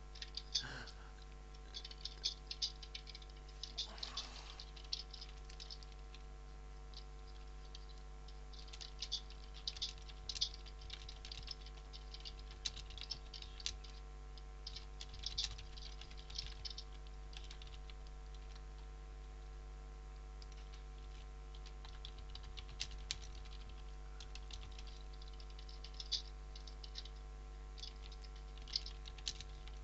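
Keys on a computer keyboard typed in short irregular runs, over a steady low electrical hum.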